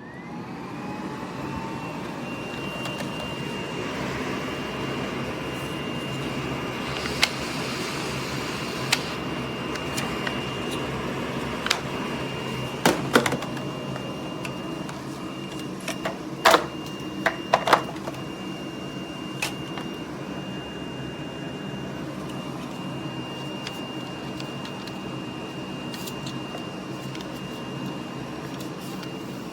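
Miele Blizzard CX1 bagless canister vacuum starting up, its motor spinning up over the first second or so to a steady whine, then running steadily. Scattered sharp clicks and knocks sound over it, several close together in the middle.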